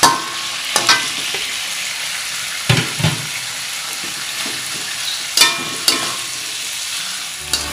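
Soaked glass noodles frying in a wok with green chilli and spice paste, sizzling steadily, while a metal spatula stirs them with several short scrapes and knocks against the pan.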